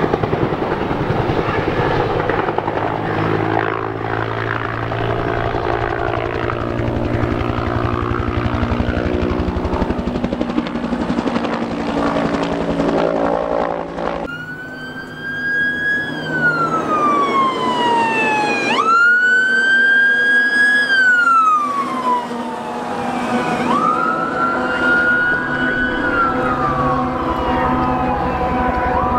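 Helicopter flying overhead with a steady rotor and engine drone. About halfway through it cuts to a fire engine's siren wailing, falling slowly and then rising sharply in long sweeps, several times over.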